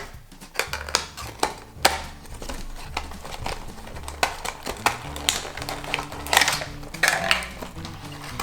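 Irregular sharp clicks and short rattles from a fidget cube's buttons and switches being worked, over background music with a steady bass line.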